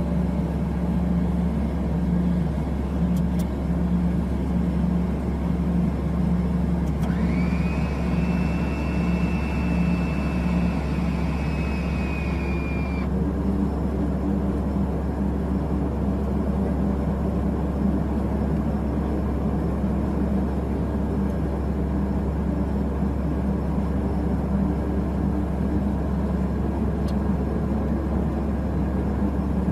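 Cabin drone of a Beechcraft King Air's twin turboprop engines at idle, steady throughout. About seven seconds in, a whine rises, holds steady for about six seconds and then cuts off suddenly, which fits the flap motor running the flaps.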